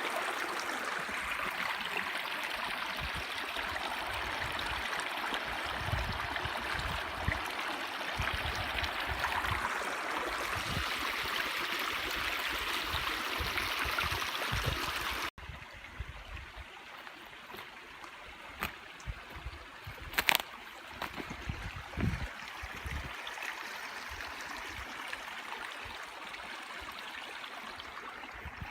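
Stream running, an even rush of water. About halfway through it cuts off suddenly to a quieter stretch of softer water with a few sharp clicks or knocks.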